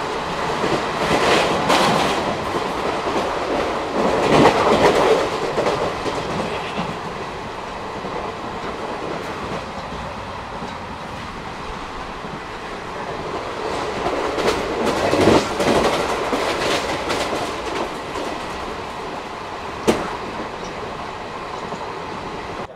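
ICF passenger coach running at speed, its wheels clattering over the rail joints under a continuous rumble of track noise and wind. There are several louder stretches of clatter and one sharp click near the end.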